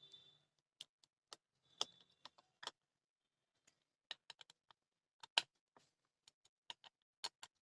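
Scattered small metallic clicks and ticks at irregular intervals as small nuts and bolts are tightened down, the loudest click about five and a half seconds in.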